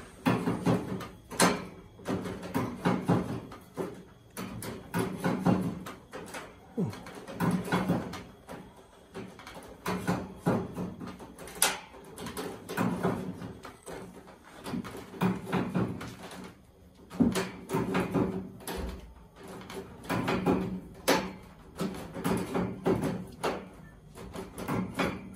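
Irregular knocking and clattering of hard objects, several strikes a second, continuing throughout.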